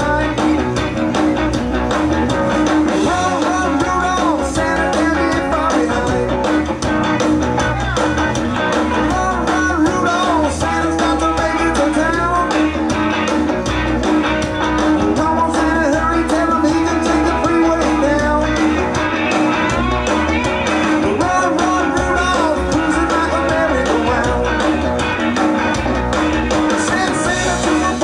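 A live band playing rock and roll music with guitar and singing, loud and steady throughout.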